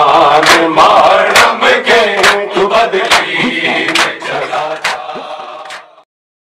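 Men chanting a noha with rhythmic matam: open-hand chest strikes land about once a second, with lighter strikes between. The sound fades out near the end.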